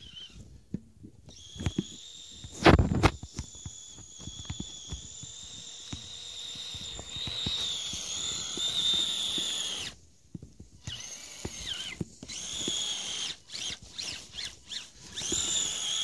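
Kyosho Blizzard RC snowcat's electric motor and gears whining as it drives through snow, the pitch wavering with the throttle; the whine stops briefly about ten seconds in and comes back. A loud thump about three seconds in.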